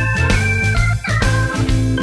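Background music with held keyboard chords, a short stepping melody line and a steady bass beat.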